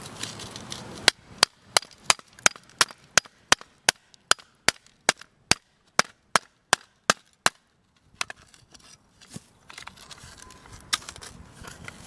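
An even run of sharp taps or knocks, about three a second, lasting some six seconds and stopping abruptly, followed by quieter scattered handling noise.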